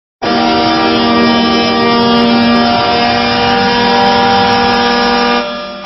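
Goal horn sounding: a loud, steady chord of several horn tones that starts abruptly, holds for about five seconds, then dies away near the end.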